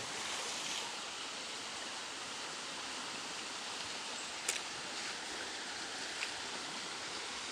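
Shallow river running steadily over rocks and stones. A faint sharp tap comes about four and a half seconds in.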